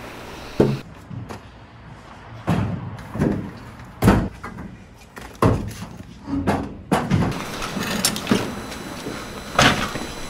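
Stainless-steel stall tables being handled and set down on pavement: a string of separate metallic knocks and clanks, irregular, roughly one a second.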